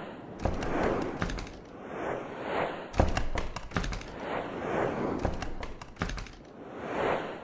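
Intro sound design: whooshing swells that rise and fade every second or so, punctuated by sharp clicks and low thumps, the strongest about three seconds in.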